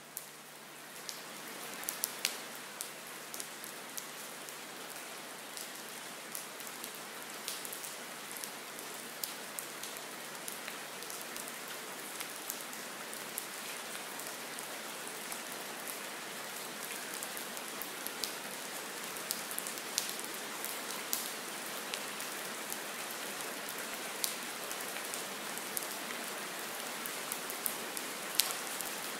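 Steady rain-like hiss with many sharp, drop-like ticks scattered through it, fading in over the first two seconds.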